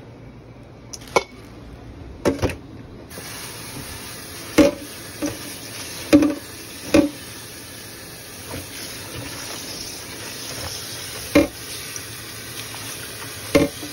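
Kitchen tap running onto water spinach (kangkong) leaves in a stainless steel bowl in a steel sink, the flow starting about three seconds in. Several sharp metallic knocks of the bowl against the sink are heard throughout.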